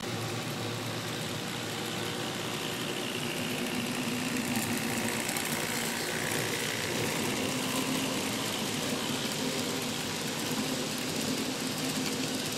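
N-scale model train running along the track, a diesel locomotive pulling freight cars: a steady running noise of motor and wheels on rail, with a faint whine that dips and rises about halfway through.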